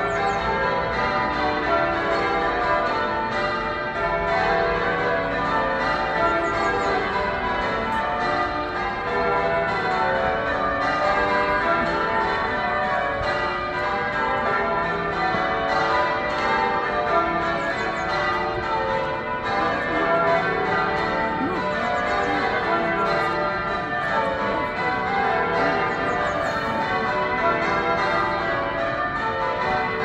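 Manchester Cathedral's tower bells being rung full circle in English change ringing: a continuous stream of bells striking one after another, each ringing on and overlapping the next, with no pause.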